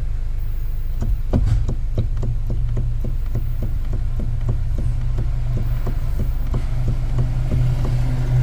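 Light knocking from a Hyundai or Kia's electric power steering (MDPS) unit as the steering wheel is worked, a quick regular run of knocks, about four or five a second, starting about a second in, over a steady low hum. This is the sign of a worn flexible rubber coupling in the MDPS motor.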